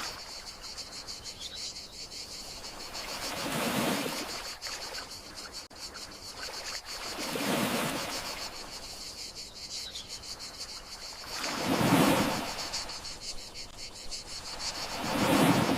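Gentle sea waves washing ashore, swelling and fading four times, about every four seconds, over a steady, fast-pulsing chorus of crickets.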